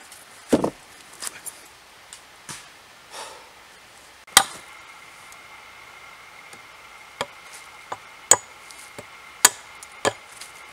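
Hatchet chopping wood by hand: a dull heavy knock and a few lighter taps on a log, then sharp chops at uneven intervals into a standing pole, about six in all.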